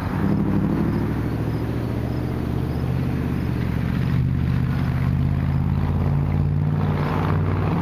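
Diesel locomotive engines of an approaching freight train running hard, a loud, steady low drone that comes in suddenly and holds with a slight waver in pitch.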